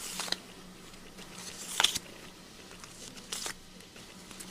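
Trading cards and their packaging being handled: three short crinkling rustles, the loudest a little under two seconds in.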